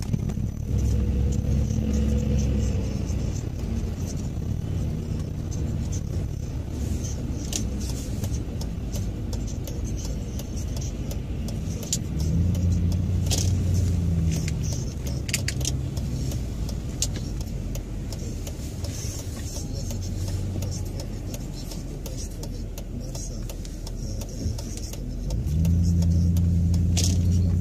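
Car engine and tyre noise heard from inside the cabin while driving in city traffic. The engine hum swells louder three times, at the start, about halfway through and near the end, as the car pulls away and picks up speed, with a few light clicks between.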